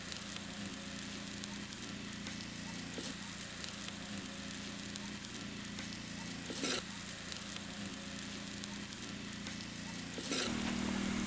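Onions with ginger and garlic frying in hot oil: a steady sizzle. A brief louder noise comes about two-thirds of the way through.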